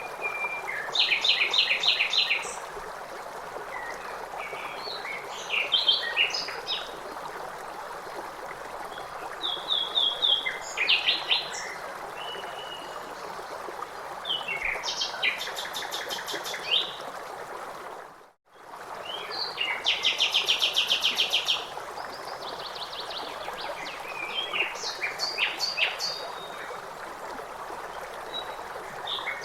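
Songbirds singing short, rapid trilled phrases every few seconds over the steady rush of a running stream. The whole sound briefly drops out about two-thirds of the way through, then resumes.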